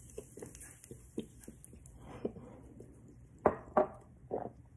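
A person gulping a carbonated malt drink from a glass bottle as it foams over, with small wet clicks and swallows. About three and a half seconds in come three short muffled vocal sounds made with the mouth full.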